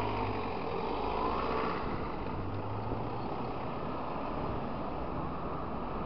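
Motor scooter engine pulling away from a standstill, its whine rising and falling in the first two seconds, then the steady noise of riding with wind over the microphone.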